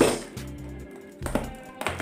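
Background music with a steady bass line, over crackles and scrapes of a taped cardboard parcel being pulled open by hand, with a couple of sharp clicks near the end.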